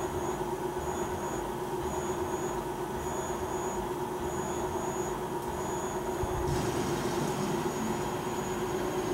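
Milltronics Partner VM24 CNC vertical machining center running with its table traversing on the axis drives: a steady machine hum, with a faint high tone pulsing on and off about once a second. More hiss joins about two-thirds of the way through.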